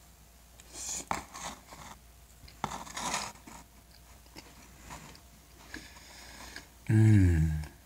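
Close-up eating sounds as a forkful of soft guava cake is taken and chewed: two short clusters of wet mouth noises, then near the end a loud, low, falling hum of pleasure, an 'mmm'.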